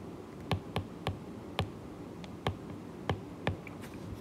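Stylus tip tapping on a tablet's glass screen while handwriting a word: about a dozen sharp ticks at uneven intervals, two or three a second.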